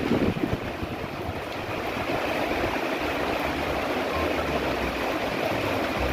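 Heavy rain falling steadily, with a low uneven rumble underneath.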